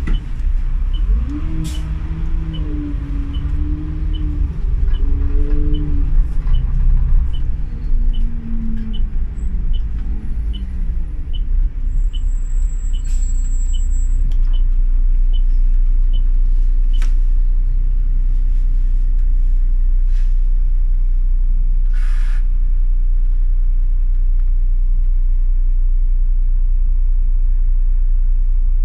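City bus running: the engine and drivetrain note rises and falls over the first dozen seconds as the bus changes speed, with a light regular ticking about twice a second. It then settles into a steady low running rumble.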